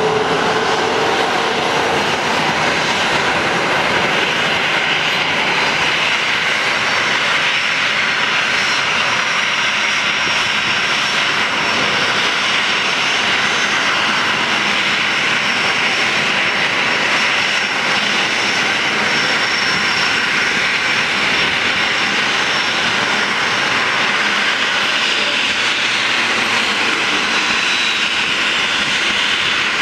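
Boeing 737-300's CFM56-3 turbofan engines running at taxi idle: a steady, unbroken rush of jet noise with a faint high whine over it.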